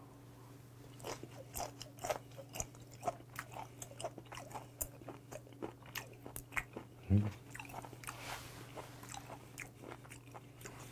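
Close-miked chewing of raw mullet sashimi: soft, wet mouth clicks and smacks in a quick, irregular run. A brief low hum from the eater comes about seven seconds in.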